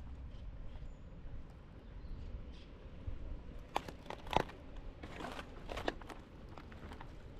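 Footsteps crunching, a handful of sharp irregular steps about halfway through and a few more near the end, over a steady low rumble.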